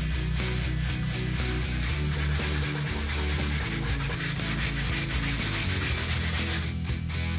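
Sandpaper on a sanding block rubbed back and forth in quick strokes along the edge of a plywood panel, over background rock music with a steady bass line. The sanding stops near the end.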